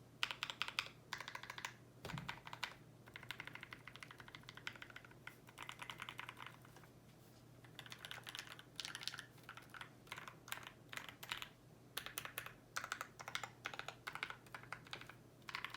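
Typing on a custom mechanical keyboard: lubed and filmed Tealios V2 linear switches on a brass plate in a Tofu65 case, with PBT keycaps. Runs of quick keystrokes with short pauses between them, and a longer pause about halfway through.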